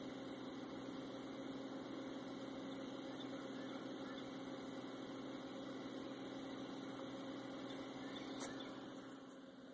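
Engine idling steadily, an even hum that holds one pitch throughout. It dips slightly just before the end.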